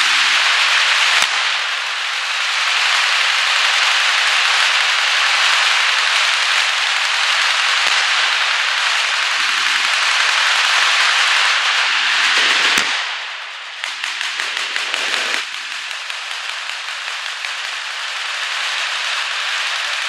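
Massed automatic-weapons fire from many machine guns at once, heard as a dense, unbroken crackle of rapid shots with a few sharper cracks standing out. The fire eases about two-thirds of the way in, returns in a ragged stretch, then carries on a little quieter.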